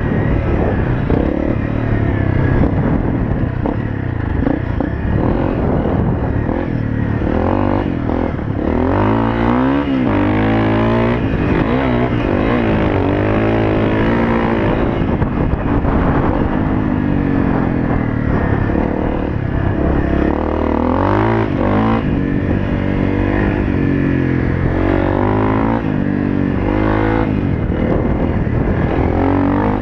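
Honda CRF250L's single-cylinder four-stroke engine under way on dirt, its pitch repeatedly rising and falling as the rider opens and closes the throttle.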